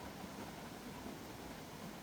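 Mountain stream running with a steady, even rushing noise.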